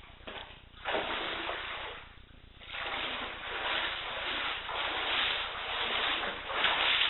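Knee-deep floodwater sloshing and swishing in swells as someone wades through it, with a brief lull about two seconds in.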